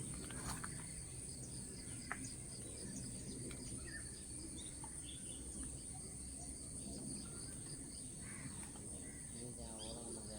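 Steady high-pitched drone of crickets, with faint scattered bird chirps and a soft click about two seconds in.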